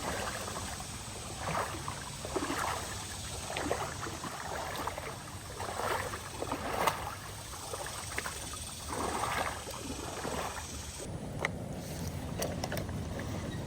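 River water splashing and sloshing in repeated strokes, roughly one a second, over steady wind noise on the microphone.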